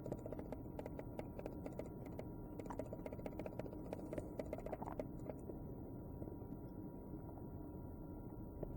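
Faint, rapid, irregular crackling of a skin tag burning under a hot soldering iron tip, with a faint steady high tone underneath. The crackling thins out about five seconds in.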